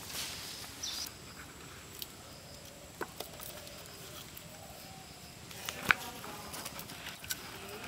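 A knife blade knocking on a chopping block as garlic is cut: a few sharp knocks, the loudest about six seconds in, with faint small clicks between.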